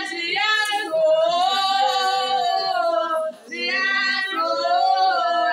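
A woman singing unaccompanied, in long held and gliding notes, with a short break a little past halfway.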